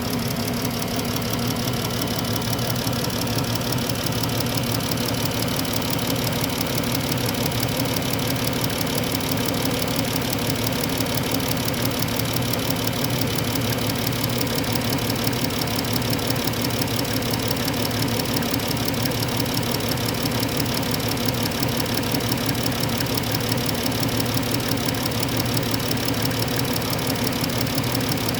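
2016 Dodge Caravan's 3.6-litre Pentastar V6 idling steadily, with a fast, even ticking over the engine sound.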